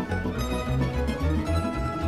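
Instrumental music led by plucked strings, with a steady bass underneath.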